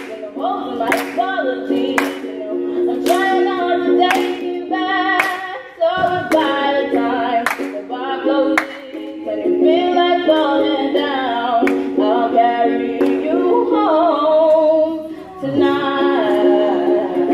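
A woman singing to her own strummed ukulele chords. The playing breaks off briefly about six seconds in and again near the end.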